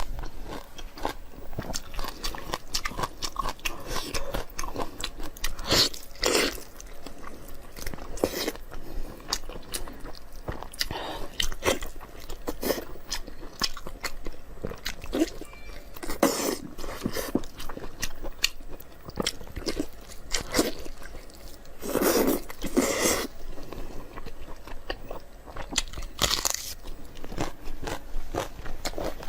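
Close-miked mukbang eating: steady chewing with many small wet clicks and crunches, and louder bites at several points.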